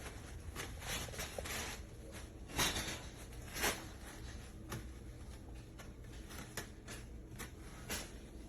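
Scattered light knocks and rustles in a small room, irregularly spaced, the loudest a little over two and a half seconds in and again about a second later.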